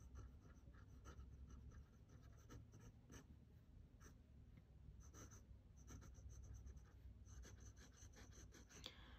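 Vintage Esterbrook J fountain pen nib scratching faintly across paper in quick short strokes as words and hatching are written. The nib gives a lot of feedback and is a little scratchy.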